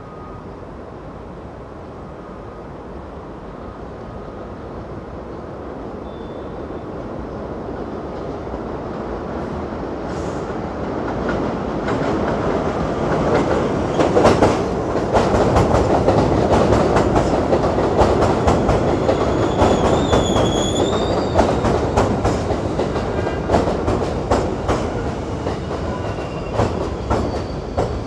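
New York City subway train approaching and running past, growing steadily louder over the first dozen seconds, with rapid clacking of wheels over rail joints and a brief high squeal of wheels about twenty seconds in.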